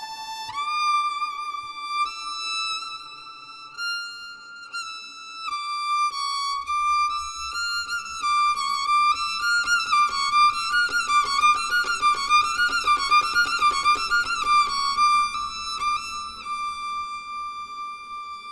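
Solo violin playing a slow melody with slides between long held notes and quick ornamented turns in the middle. A faint low accompaniment sits underneath through the middle part.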